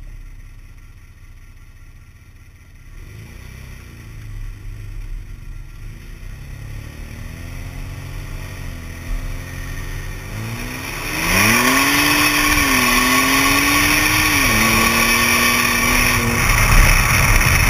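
Ford Flex's 3.5-litre twin-turbo EcoBoost V6 accelerating through the gears, heard from under the car beside a 3-inch boost-activated exhaust cutout. About eleven seconds in, under hard throttle, it turns much louder and harsher as boost opens the cutout. Two upshifts then drop the pitch. The exhaust is still fairly quiet because the catalytic converters remain in place.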